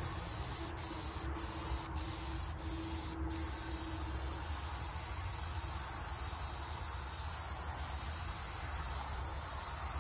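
Airbrush spraying gold leaf adhesive (size) in a steady hiss, the hiss breaking off briefly about six times in the first three seconds, over a steady low rumble.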